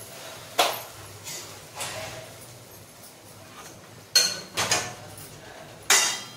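Stainless steel plates and kitchen utensils clinking and clanking: several sharp metallic knocks spaced apart, the loudest about half a second in, about four seconds in and near the end.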